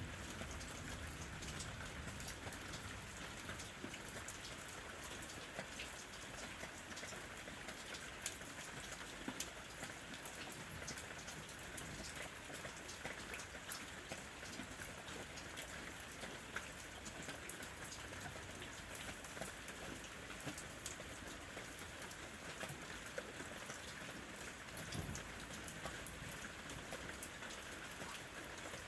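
Steady rain falling, a constant hiss with scattered individual drop hits.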